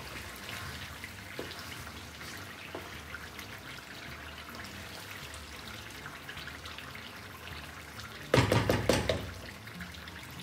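Chicken curry in mustard oil simmering with a soft steady sizzle in a pan as a wooden spatula stirs and scrapes through it, with a few light clicks. About eight seconds in comes a quick run of loud knocks and clatter.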